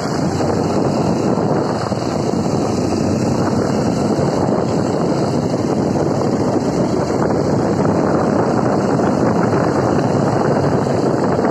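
Honda CRF150L dirt bike being ridden, heard as a steady rush of wind buffeting the microphone with the bike's single-cylinder engine running underneath.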